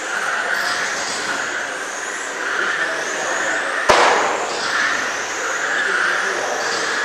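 Electric RC race cars whining past in a steady stream, the sound swelling and fading as cars go by. One sharp crack about four seconds in is the loudest sound.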